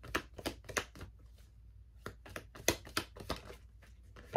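Tarot cards being handled and laid down: a string of light, irregular clicks and taps, a few a second.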